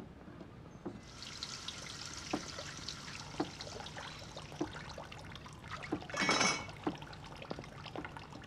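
Kitchen tap running into a sink, starting about a second in, with water splashing over something being washed and a few light knocks and clinks. A brief louder sound comes about six seconds in.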